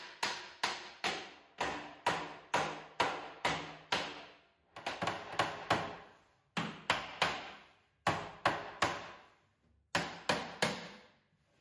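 Hammer blows on a painted tulip-wood cabinet carcass, knocking a panel home during assembly. Runs of sharp knocks come about two to three a second, each ringing briefly through the cabinet, broken by short pauses.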